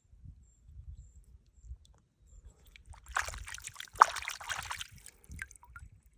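Water splashing and sloshing for about two seconds, from the arrowhead being washed off in water, with one sharp click in the middle. Low rumble of handling noise on the microphone throughout.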